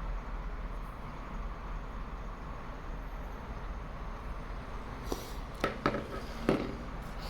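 Handling noise during an unboxing: a few sharp clicks and taps about five to six and a half seconds in, over a steady low hum and hiss.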